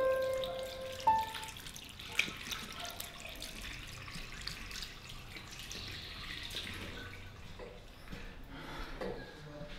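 Water running from a tap into a washbasin while hands are washed under the stream, with small splashes and drips.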